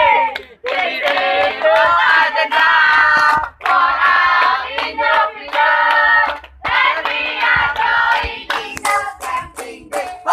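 A group of teenagers singing a cheer chant in unison, in three short phrases, with hand claps, thicker near the end.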